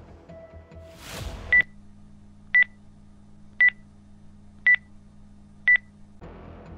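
Countdown timer sound effect: five short, high electronic beeps, one a second, after a whoosh about a second in.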